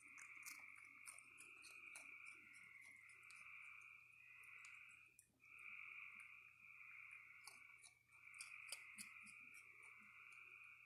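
A faint, continuous chorus of frogs calling, with many short crunching clicks from a raccoon chewing cookies and cereal.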